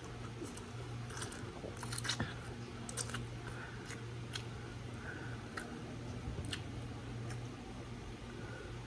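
Close-up chewing of stir-fried pancit canton noodles: wet mouth smacks and sharp clicks about once a second, over a steady low hum.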